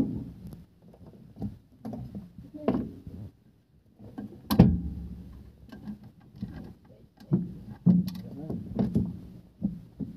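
Irregular metal clanks and knocks of a hand tool working on a clutch pressure plate and flywheel, the loudest knock about four and a half seconds in.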